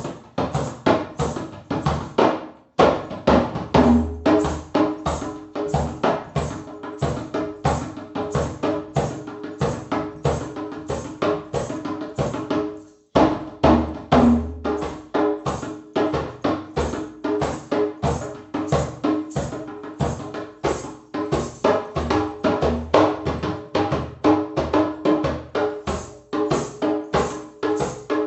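Rhythmic percussion-driven music with fast, dense drum strokes over a steady pitched drone; the beat breaks off briefly twice, about three seconds in and about halfway through.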